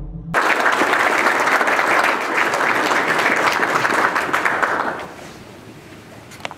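An audience applauding, starting abruptly and dying away about five seconds in. A single sharp click comes near the end.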